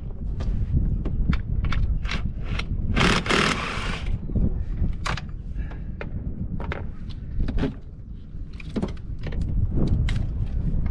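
Irregular clicks, clanks and scrapes of hand tools on engine parts during engine disassembly, with a short hissing rush about three seconds in, over a steady low rumble.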